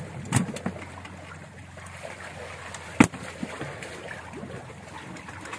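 Steady sea and wind noise with a few sharp knocks and clicks from tuna being handled and moved into a plastic tub; the loudest knock comes about three seconds in.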